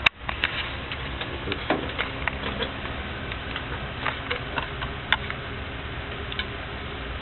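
A sharp click at the very start, then scattered small clicks and taps over a steady low hum.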